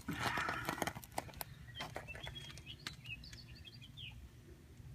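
Footsteps crunching on gravel for about the first second, then a few short, high bird chirps, over a low steady hum.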